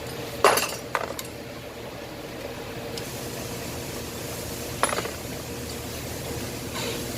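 Metal tools and engine parts clinking as they are handled during an engine teardown. There is a sharp clink about half a second in, a lighter one a second in and another near five seconds, over a steady background hum.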